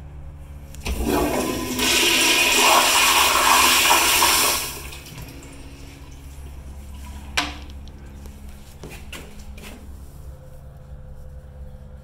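1999 American Standard Neolo toilet on a flushometer valve flushing. A loud rush of water starts about a second in, holds for about three seconds, then cuts back to a low steady hum. A single sharp click follows a couple of seconds later.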